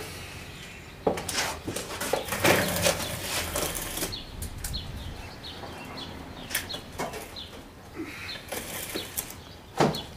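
Irregular rustling and handling noises with scattered clicks and knocks, and a few louder knocks near the end.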